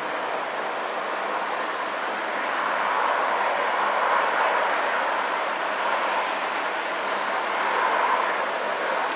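Dash 8 turboprop's engines and propellers running at high power as the airliner rolls along a wet runway. A steady, loud sound that swells a little a few seconds in and again near the end.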